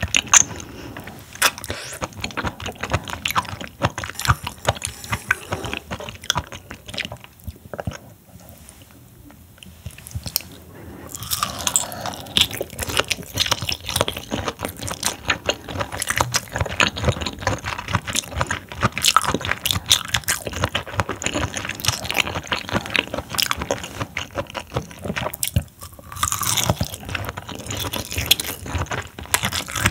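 Close-miked chewing of raw seafood sashimi: a dense run of short wet clicks and smacks, easing off for a few seconds about a third of the way in, then resuming.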